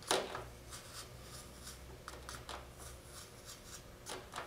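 Razor blade trimming excess cured carbon fiber patch material off a landing gear leg: faint scratchy scraping and cutting strokes, with a sharper click at the start and another about four seconds in.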